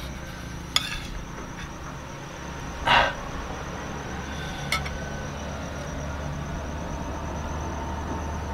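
A metal spoon clinking and scraping against a small ceramic bowl of rice while eating: a sharp click about a second in, a louder short scrape about three seconds in, and a lighter click near five seconds, over a steady low hum.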